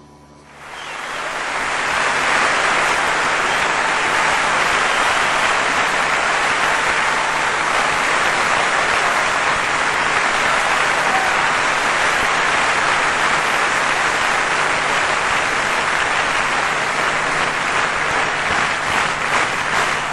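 Applause that swells up over the first couple of seconds into a steady, dense clapping. Near the end it turns into rhythmic clapping at about three claps a second.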